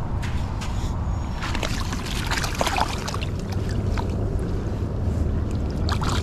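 Steady rushing of river water with wind on the microphone, broken by scattered light clicks and knocks.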